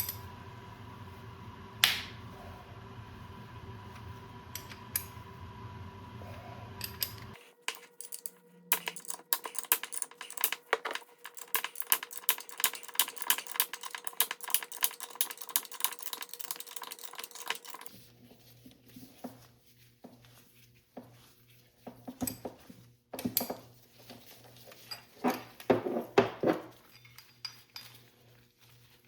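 Metal parts and tools clinking and clicking as they are handled, in irregular sharp clicks. There is a dense run of rapid clicks from about 8 to 18 seconds in and another cluster near the end.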